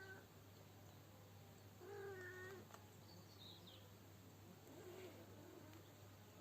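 A cat meowing faintly: one clear meow about two seconds in and a softer one about five seconds in.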